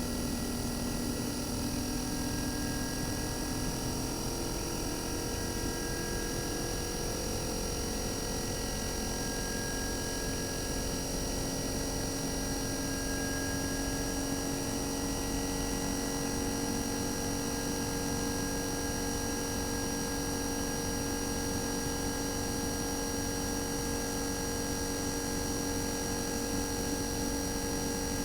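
RECHI single-rotary inverter compressor (43W26SH) of a 2019 Sharp AU-J25XY air-conditioner outdoor unit running steadily with a smooth hum and a steady whine; its pitch steps up slightly a few seconds in as the inverter raises its speed, then holds.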